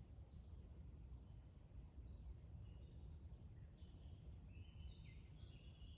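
Faint forest ambience at dusk: a low steady rumble and a thin steady high tone, with short bird chirps that come more often in the second half.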